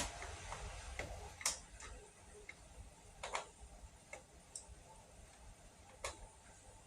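Faint, scattered clicks and taps, about four or five over several seconds, as screws are started by hand into the Kirby vacuum's housing.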